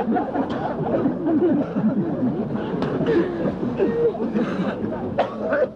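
Several men talking over one another and laughing, with chuckles and snickers through the babble.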